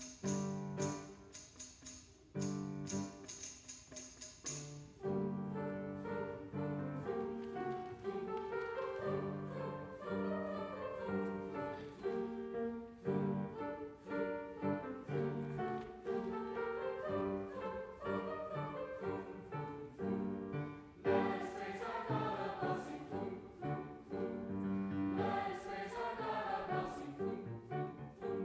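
A tambourine shaking in rhythm for about the first five seconds, then a choir singing a Christmas piece.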